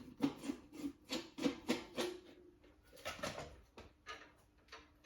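Mistral MCFLA 48 ceiling fan running on low, a faint steady hum, under a run of irregular short clicks and squeaks that thin out in the second half.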